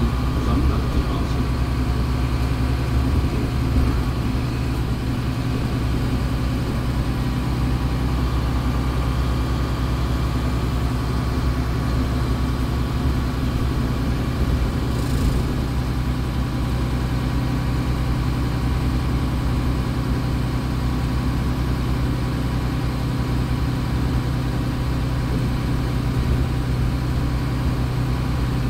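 Engine of a MAN A20 Lion's City Ü bus idling steadily with the bus at a standstill, heard from inside the passenger cabin.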